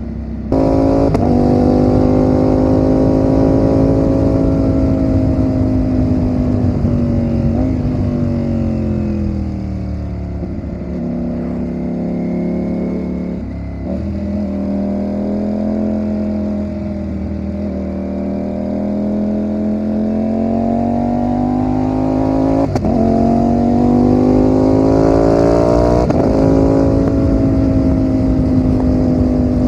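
Ducati Panigale V4's V4 engine running under way on the road. Its note falls over about ten seconds, holds low, then climbs again in the last third, with a few short breaks in the note along the way.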